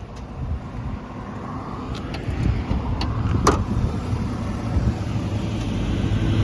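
2020 GMC Sierra pickup running with a low rumble that grows steadily louder. A few light clicks and one sharp knock come about halfway through.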